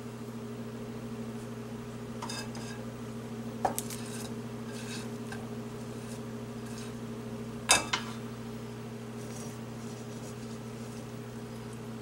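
A spatula scrapes and taps against a nonstick frying pan as pieces of fried fish are moved about. There are two sharper clinks, about four and eight seconds in, over a steady low hum.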